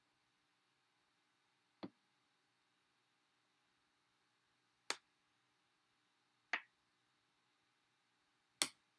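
Checker pieces being moved on a checkerboard and set onto stacks of captured pieces: four short, sharp clicks a few seconds apart, the second and last the loudest.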